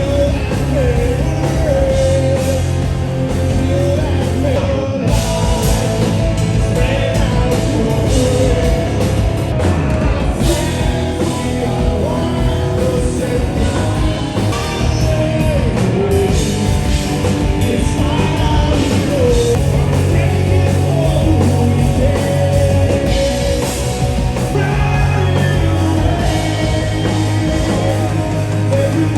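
Rock band playing loudly with a singer's voice over drums, bass and guitars.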